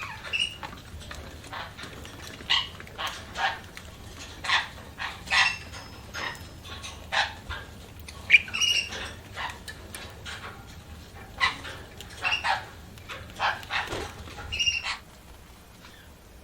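Budgerigars chirping: short, sharp calls one or two a second in an irregular run, stopping shortly before the end.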